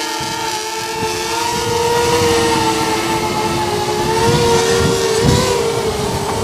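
Eachine Falcon 180 racing quadcopter's brushless motors whining steadily in flight, the pitch wavering slightly as the throttle shifts. Wind buffets the microphone with a gusty low rumble.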